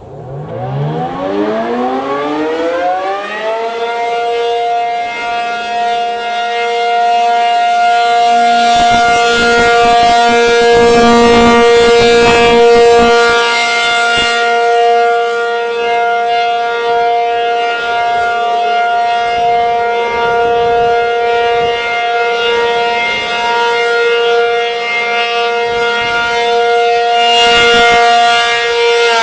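American Signal T-135 (ACA P-50) outdoor warning siren sounding its steady alert signal during a test. It winds up in rising pitch over the first few seconds, holds one steady tone with many overtones, and begins to wind down right at the end.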